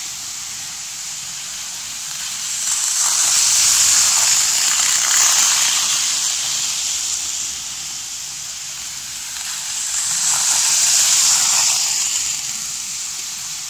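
OO scale model train running around a loop of track, a steady hissing whir of motor and wheels on the rails. It swells twice as the train passes close by.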